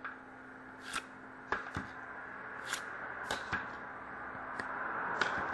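Hockey trading cards being sorted through by hand, each card slid off the stack with a short, sharp click or snap at irregular intervals. A faint steady hum runs underneath.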